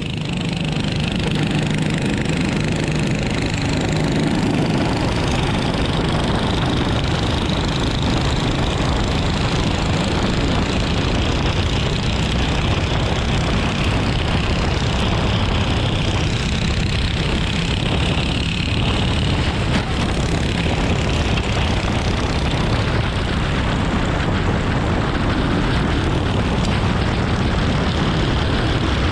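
Onboard sound of a dirt racing kart's Predator 390 single-cylinder engine running hard around the track, with other karts' engines close by. A steady, loud engine drone that holds at about the same level throughout.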